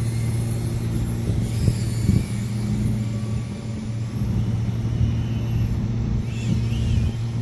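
A steady low hum throughout, with the high, wavering motor whine of a small brushless FPV whoop drone faintly rising and falling in pitch above it.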